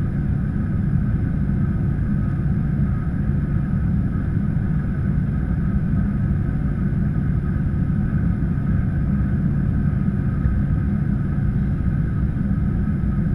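Airbus A319 cabin noise while taxiing, heard from a window seat: a steady low rumble of the engines at idle with a faint steady whine over it.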